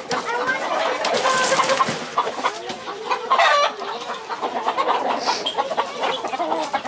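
Caged chickens and roosters clucking and calling throughout, with one louder, short call a little over three seconds in.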